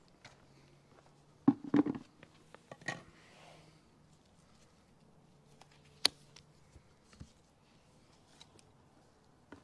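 Knocks and clicks of hands working at a pool skimmer and a plastic bucket while wet debris is scooped out: a cluster of clunks about one and a half seconds in, another knock near three seconds, and a sharp click around six seconds, with quieter handling noise between.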